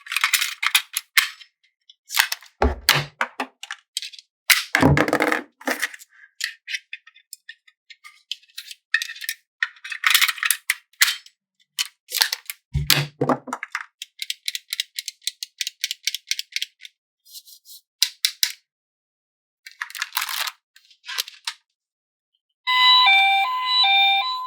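Small plastic toys and their packaging handled: irregular clicking, rattling and crinkling, with three heavier knocks as pieces are set down. Near the end a short electronic jingle starts.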